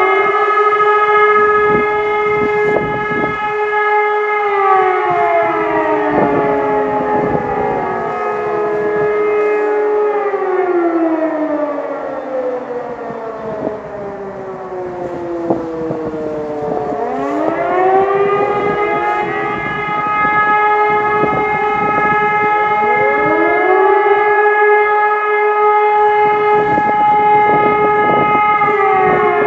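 Civil defence sirens sounding a test alarm. Steady wailing tones slide down in pitch one after another over several seconds and grow quieter, then about seventeen seconds in they rise again and settle back onto steady tones.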